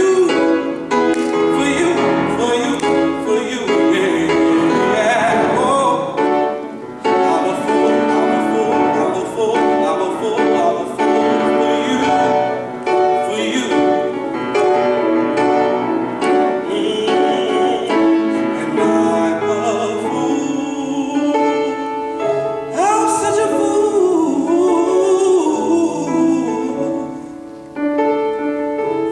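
Male voice singing a slow soul ballad into a microphone, accompanied by a grand piano.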